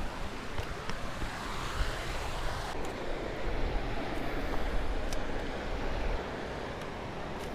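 Wind buffeting the microphone: a gusty low rumble over a steady rushing hiss, with a few faint clicks. It eases slightly near the end.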